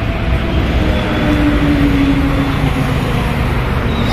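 Steady road-traffic noise, with one engine's hum sliding slightly lower in pitch through the middle as a vehicle goes past.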